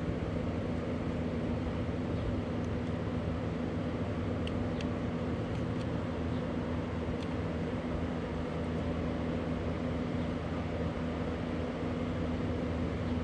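A steady machine hum, several low tones under an even hiss, holding level throughout, with a few faint light clicks.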